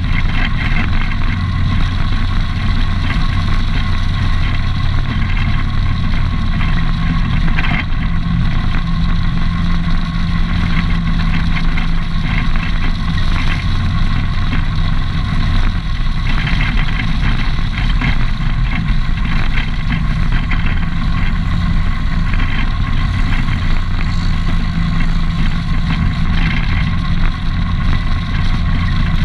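ATV engine running steadily at cruising speed, with tyre noise from the gravel road underneath.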